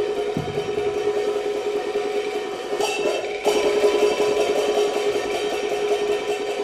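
Peking opera percussion ensemble of drums, gongs and cymbals playing rapid strokes to accompany a stage fight, over a steady held tone. About halfway through it grows louder, with a high ringing added.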